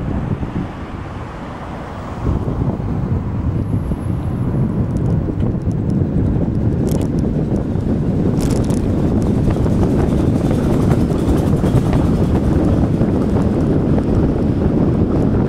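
Wind buffeting the phone's microphone while riding an e-bike, a steady low rumble that drops for a couple of seconds near the start, then rises and holds.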